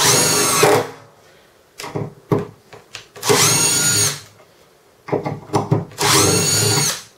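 Cordless impact driver sinking woodscrews into a softwood block: three quick drives of about a second each, with short clicks between them as the next screw is set. The screws drive smoothly, so the impact only comes in near the end of each drive.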